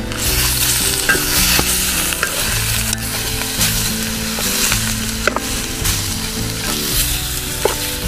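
Bratwurst slices and bell peppers sizzling as they fry in a wide pan, stirred with a spatula. There is a steady frying hiss with a few small clicks.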